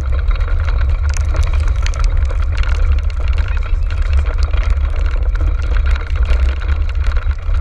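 Heavy wind rumble on the microphone of a camera riding a moving dog cart, with a steady rattle and many small clicks from the cart rolling over the track.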